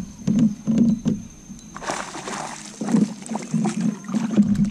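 Spinning reel being cranked on a fishing rod, giving a rhythmic low whir with clicks a few times a second. A rushing hiss lasts about a second a little before the middle.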